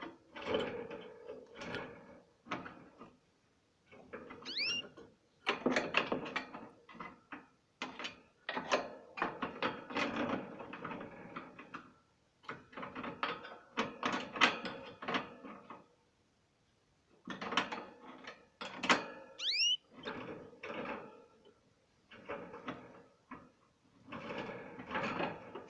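Canaries splashing and fluttering in a water bath, in irregular bouts of a second or two with short pauses between them. A few brief rising chirps come through the splashing.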